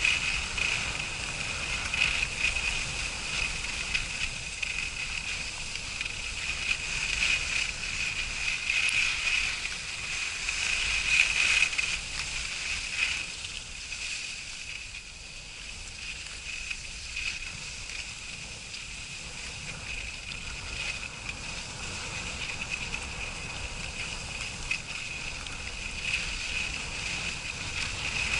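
Skis sliding and scraping over snow on a downhill run at about 12 mph, a steady hiss that rises and falls in loudness.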